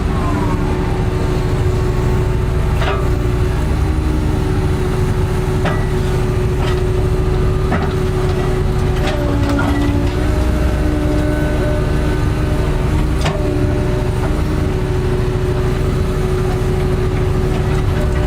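Railway sleeper repair machine running: a steady heavy engine drone with a constant hum, punctuated by a few sharp knocks.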